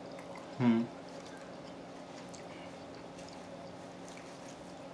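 Eating sounds: faint chewing and mouth clicks from people eating pizza and chicken wings, over a steady low hum. About half a second in there is one short, loud vocal sound.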